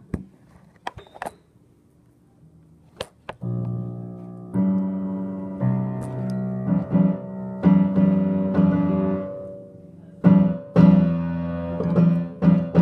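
Upright piano keys mashed in low clusters by a plush toy's hands: dissonant chords struck, held to ring, and restruck about six times from about three and a half seconds in. A few sharp knocks come before the playing starts.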